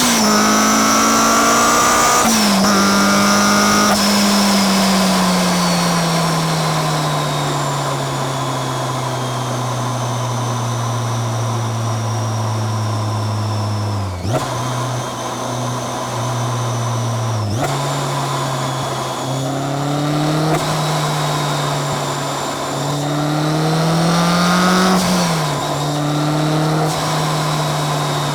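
Supercharged Honda S2000's 2.2-litre four-cylinder with a Kraftwerks supercharger, its revs falling slowly for more than ten seconds with the supercharger whine dropping in pitch alongside. Two abrupt breaks come near the middle, then the revs climb for a few seconds, drop sharply and settle into a steady run.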